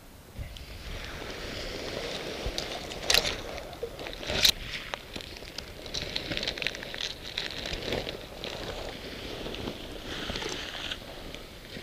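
Waterproof jacket and heather rustling and crackling as a hunter crawls low through the heather. Two sharp knocks come a little over a second apart, about a third of the way in.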